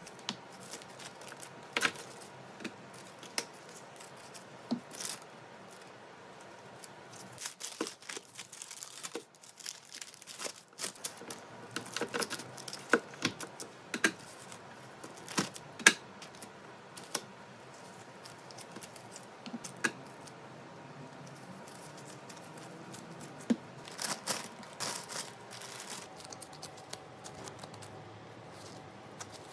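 Parchment paper rustling and crinkling, with scattered clicks and taps, as gloved hands break up and portion cookie dough and set pieces on a digital kitchen scale. The loudest taps fall in the middle, with more rustling near the end.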